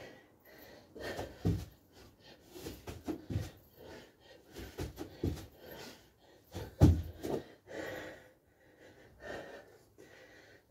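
A man breathing hard with sharp, gasping exhalations through a burpee-and-jumping-jack exercise set, with dull thuds of feet and body on a carpeted floor; the loudest thud comes about seven seconds in.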